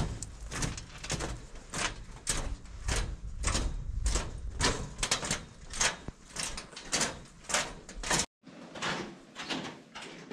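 Footsteps of people walking at a steady pace over a low rumble. The sound drops out briefly a little after eight seconds, then the steps go on.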